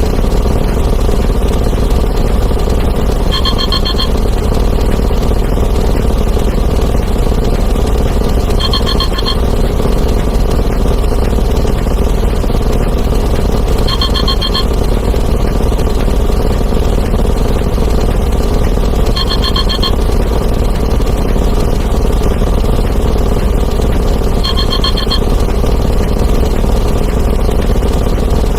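A dense, loud, unbroken wall of layered sound effects: explosions, breaking glass, and ringing phones and alarm clocks stacked on top of one another until they merge into one continuous noise. A short ringing tone cuts through about every five seconds.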